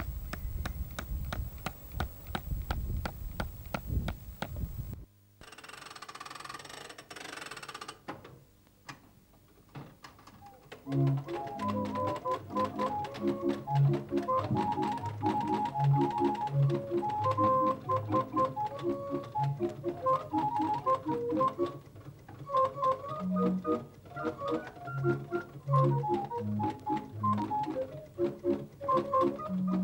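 A low rumble with faint regular ticks, then a short hiss, then organ music from about ten seconds in, with a bouncing bass line and chords under a melody.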